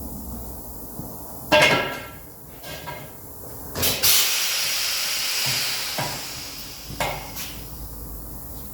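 Metal strikes on a bent wheel rim being straightened, the loudest about a second and a half in, ringing briefly, with more hits near three, four and seven seconds. After the hit at about four seconds comes a hiss lasting about two and a half seconds.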